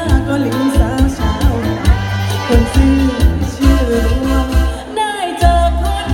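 A singer singing over backing music with a heavy, regular bass and drum beat.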